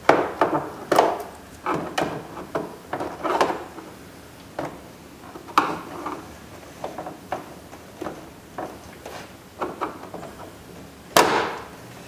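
Flat-blade screwdriver prying at a two-piece plastic push-pin retaining clip on a door trim panel: a run of irregular sharp plastic clicks and knocks, with the loudest one near the end.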